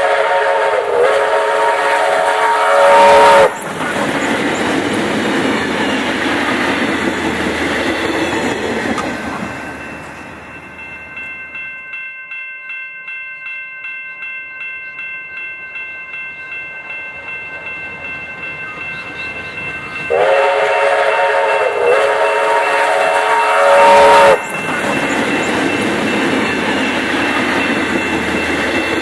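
D3 class steam locomotive sounding its whistle, a held blast of several notes at once lasting about four seconds, then running past with the noise of its exhaust and wheels. After a quieter stretch with a faint, even beat, the whistle sounds again for about four seconds, and the locomotive and its carriages run by.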